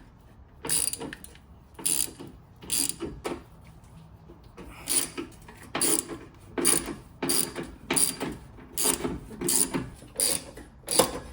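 Ratchet wrench clicking in repeated short back-strokes, loosening the fuel filter canister on an LM2 Duramax diesel, with a brief pause about four seconds in and quicker strokes towards the end.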